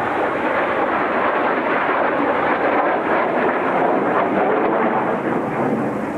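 Steady, loud roar of the Kawasaki T-4 jet trainers' engines as the formation flies over, swelling slightly toward the middle.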